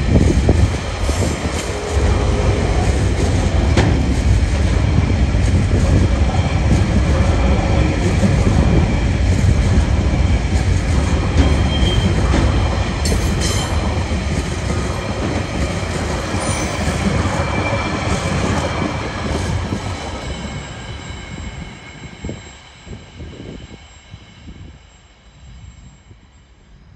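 Freight train wagons rolling past on the rails: a loud, steady low rumble of wheels and running gear, with thin high-pitched wheel squeal over it. It fades away about twenty seconds in as the last wagons pass.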